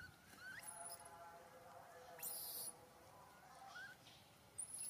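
Newborn macaque giving faint short squeaks that rise and fall in pitch, one at the start and a pair near the end, with a fainter held call soon after the first. Two brief high hisses, about two seconds in and near the end, are the loudest sounds.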